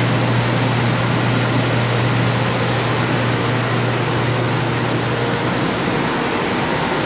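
Steady fan and air-handling noise: a constant rush of air over a low, unchanging hum.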